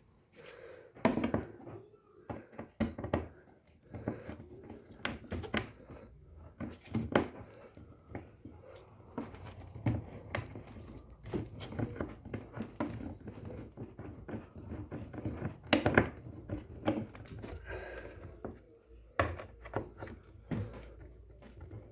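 Irregular knocks, clicks and clatter of hand tools and small parts being handled while the mounting bolts of a washing machine gearbox are put in place, with a sharper knock about a second in and another near 16 s.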